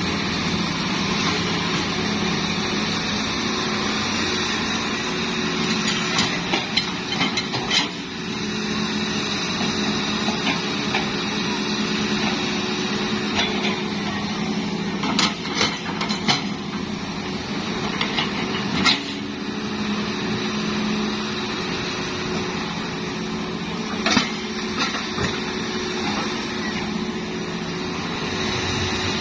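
Hitachi excavator's diesel engine running steadily, with a few short sharp knocks now and then.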